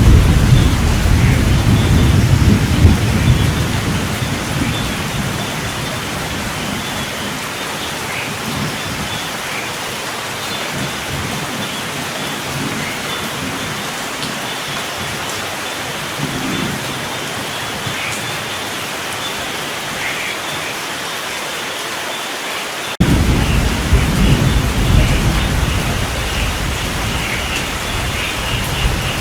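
Steady heavy rain with rolling thunder. The low rumble fades over the first few seconds, leaving the rain hiss, then cuts back in suddenly about three-quarters of the way through, as at a splice in the recording.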